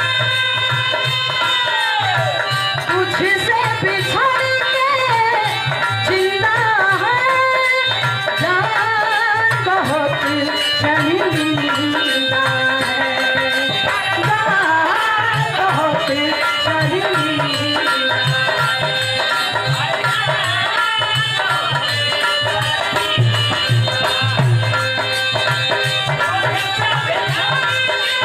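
North Indian folk song: a tabla-type hand drum keeps a steady beat under a melody that bends and slides in pitch, with a woman singing.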